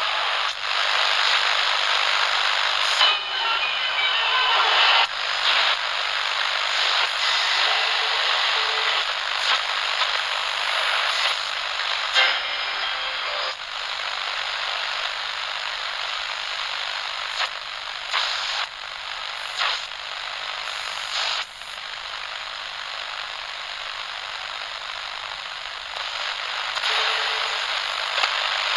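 Radio static: a steady hiss with crackles and scattered sharp clicks, and short faint whistling tones here and there. It drops a little in loudness after about two-thirds of the way through.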